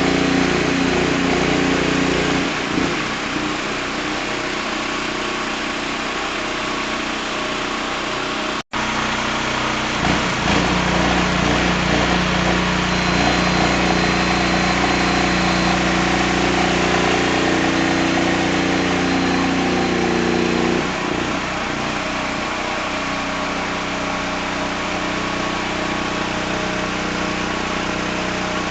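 Engine-driven CO2 welding generator running with a steady engine hum. Its note and loudness shift a few times, and it cuts out abruptly for an instant about nine seconds in.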